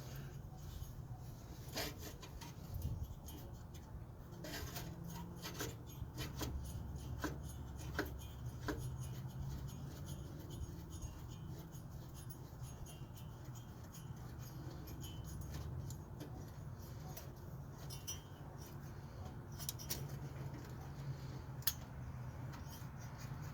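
Scattered light clicks and rubbing of hand tools on metal while loosening the alternator's belt and mounting bolt, over a steady low hum.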